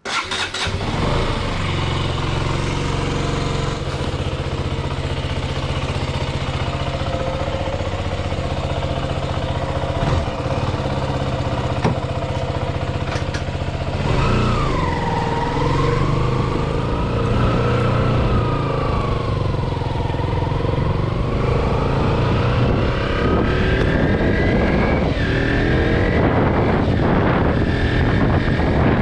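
KTM Duke 125's single-cylinder four-stroke engine idling steadily. From about halfway through, its pitch rises and falls as it revs and pulls away, then climbs steadily near the end as the bike accelerates.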